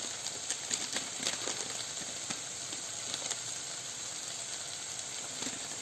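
Onions and green peas sizzling in hot oil in a pan as the spices go in, a steady frying hiss with a few light clicks in the first couple of seconds.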